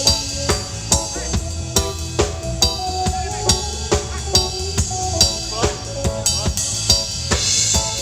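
Reggae music with a drum kit keeping a steady beat over a bass line and sustained pitched notes, with a cymbal wash near the end.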